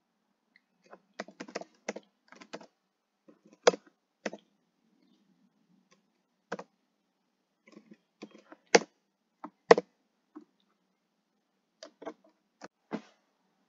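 Typing on a computer keyboard: scattered keystrokes in short irregular runs with pauses between, a few struck harder than the rest.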